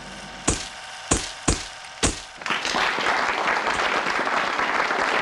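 Four sharp knocks in quick succession, then from about halfway through a steady wash of applause.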